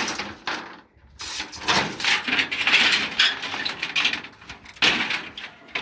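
Cut pieces of sheet-metal roofing tin being picked up and handled, scraping and rattling against each other in irregular bursts.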